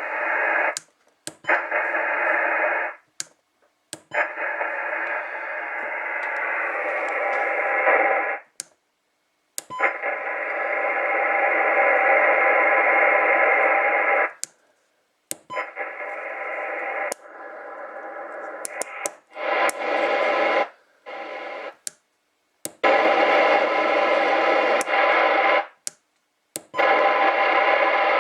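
Ranger AR3500 10-meter transceiver's speaker playing received static and signal in stretches of one to five seconds, cut off by sharp clicks and short silences between them.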